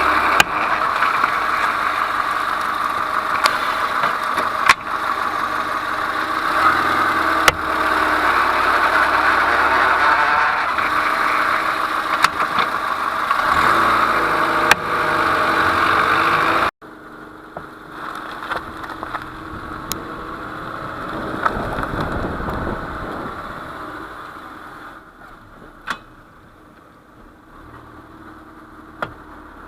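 A Peugeot 207 car with irregular sharp knocks over a steady running noise. The knock comes from play at the front wheel hub that a new SKF hub bearing has not cured, and whose cause the owner cannot find. The steady noise cuts off abruptly about two-thirds of the way through, leaving a quieter background with a few more knocks.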